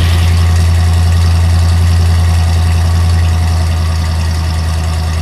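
Sound effect of a big monster truck engine running steadily with a deep, even rumble, easing off a little near the end.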